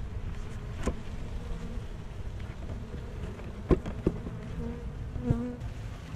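Honey bees buzzing around an open hive, with brief hums as single bees pass close. A few sharp knocks and clicks come as the wooden frames are handled, the loudest a little past halfway.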